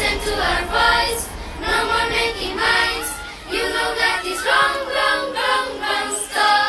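Children's choir singing several short phrases of a cheerful song.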